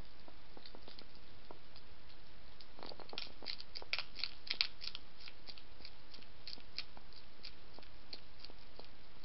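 European hedgehog eating from a dish: a run of sharp, quick crunches and clicks as it chews, thickest and loudest from about three to five seconds in.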